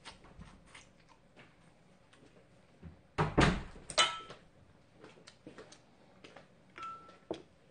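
Tableware knocking on a table. A heavy thump a little over three seconds in is followed at once by a ringing clink of ceramic dishes. Near the end a short ringing tone and a knock come as a plate is set down, with small clicks of chopsticks and eating between.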